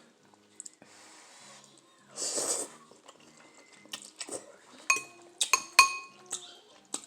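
Utensil clinking against a bowl of noodles: several sharp clinks that ring briefly, starting about five seconds in. A short burst of noise comes earlier, about two seconds in.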